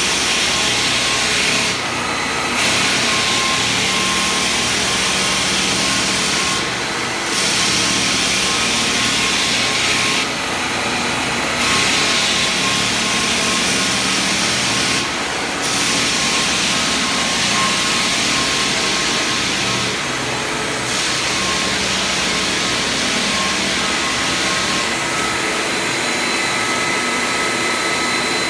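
Floor drum sander running on a wood floor, with the hiss of a dust-extraction vacuum, a steady loud machine noise whose high sanding hiss drops briefly every four to five seconds.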